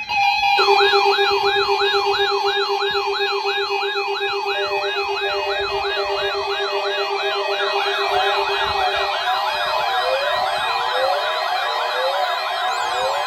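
Weather radio receiver's alert alarm sounding as a siren: a rapid rising-and-falling wail, about two and a half sweeps a second, over a steady tone, triggered by the NOAA Weather Radio alert test. About eight seconds in, a second overlapping set of sweeps joins and the steady tone drops away.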